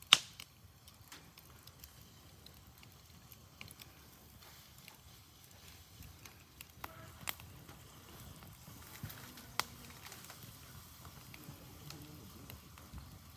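Wood campfire burning with a faint hiss and scattered sharp crackles and pops, the loudest right at the start and a few more well apart later on.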